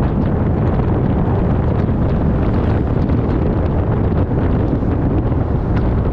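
Steady wind and road noise of a car driving, heavy in the low end.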